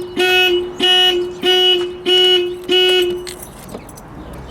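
A 1986 Mercedes 300E's anti-theft alarm honking in a steady on-off rhythm, about one and a half honks a second, five honks before it stops about three seconds in. It is the faulty Becker alarm that goes off on its own whenever the car is left for a while.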